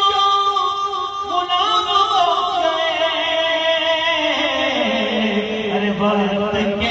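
A male voice sings a naat through a microphone in long, drawn-out melismatic notes. About five seconds in, the melody sinks to a low held note.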